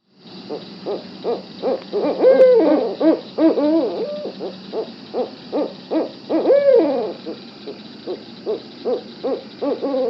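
Bird calls starting suddenly: a steady run of short, low, pitched notes, about two or three a second, broken by two longer calls that rise and fall in pitch, a couple of seconds in and again past the middle.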